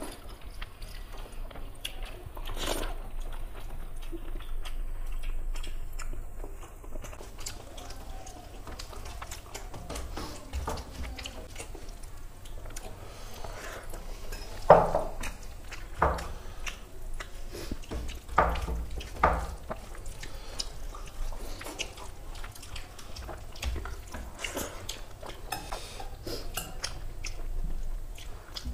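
Eating at a table: fingers mixing rice and dal on steel plates, with chewing, and small clicks of dishes throughout. Four louder, sharp clinks in the middle of dishes and a glass bowl knocking against the plates.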